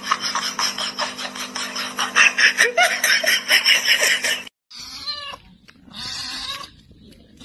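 For the first four and a half seconds, a rapid string of short clicks and scuffs with a steady hum under it as a dog moves about on a bed; it cuts off suddenly. Then a tabby kitten meows twice, short calls that bend in pitch.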